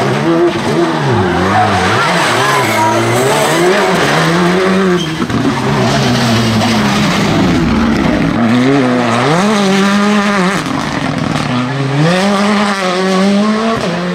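Rally cars, among them a Hyundai i20 N Rally2, being driven hard through a tight tarmac corner: engines revving up and down with gear changes and sharp rises in pitch as they power out, tyres skidding.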